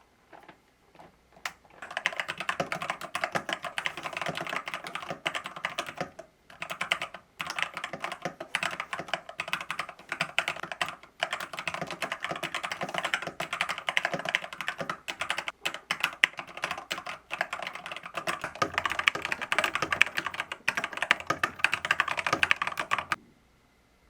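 Fast continuous typing on a Lofree Fog (Misty) translucent mechanical keyboard, a dense run of key strokes. A few single keystrokes come first, then steady typing starts about two seconds in, with brief pauses, and stops about a second before the end.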